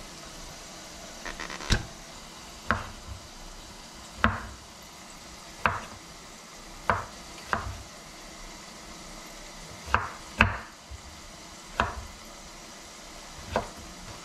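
Chef's knife chopping pickled cucumbers on a bamboo cutting board: about ten sharp knocks of the blade against the wood, irregularly spaced, roughly one a second.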